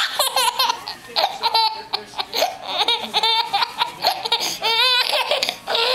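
Baby laughing hard, a rapid string of high-pitched laughing bursts with wavering squeals in between, set off by a sock being waved at him.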